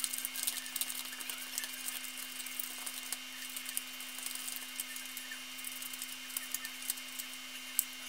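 Small pink plastic spoon stirring and scraping a thick candy paste in the plastic tray of a Kracie Popin' Cookin kit: many small irregular clicks and scrapes, over a steady background hum.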